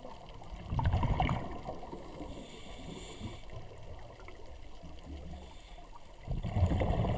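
Scuba breathing heard underwater: regulator exhaust bubbles rumbling and gurgling as a diver exhales, once about a second in and again near the end. Quieter hissing and gurgling come in between.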